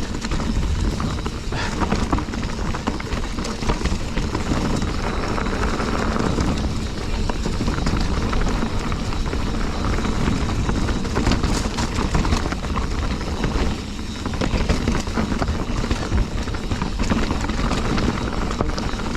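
Full-suspension mountain bike, a Specialized Stumpjumper FSR, clattering and rattling nonstop as it rides fast over rocks, with wind rumbling on the camera microphone. The rattle eases briefly about two-thirds of the way through.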